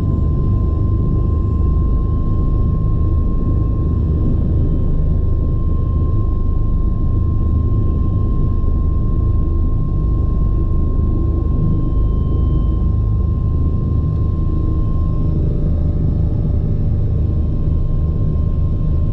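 Bell 429 twin-engine helicopter running steadily: a constant deep rumble of rotor and engines with a steady high turbine whine over it.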